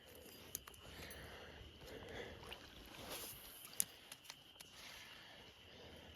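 Faint creek water running, with a few sharp clicks, the loudest about four seconds in.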